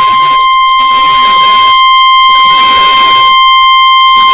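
NOAA Weather Radio warning alarm tone: a loud, steady, single-pitched tone near 1 kHz with a hiss behind it. It is the attention signal sounded ahead of a weather alert broadcast.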